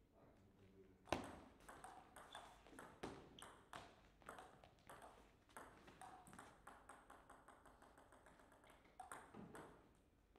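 Table tennis rally: the celluloid-type plastic ball clicking sharply off rubber-faced bats and the table in quick alternation for about eight seconds. The loudest click, about a second in, is the serve, and the clicks stop near the end as the point is won.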